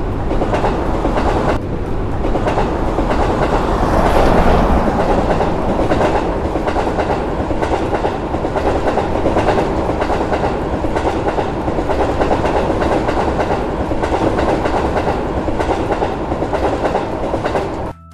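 A train passing: a steady rumble of wheels running on the rails, cutting off suddenly near the end.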